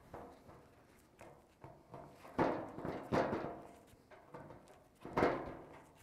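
Left-cut aviation snips cutting through the sheet steel of a 1956 Chevy fender, with a crunching snip at each squeeze of the handles. There are about eight cuts at an uneven pace, the loudest about halfway through and near the end.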